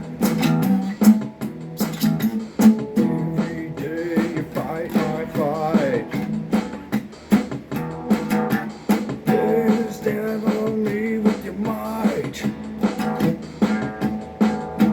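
Guitar-led music with a steady beat, a wavering melody line over strummed chords.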